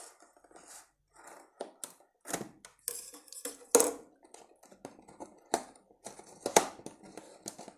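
Cardboard headset box being handled and its seal sticker broken open: irregular scrapes, taps and clicks, with two sharper clicks about four and six and a half seconds in.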